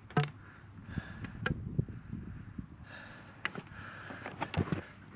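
Scattered light knocks, clicks and scrapes from hands working plastic water-pipe fittings onto a pipe, with no steady sound.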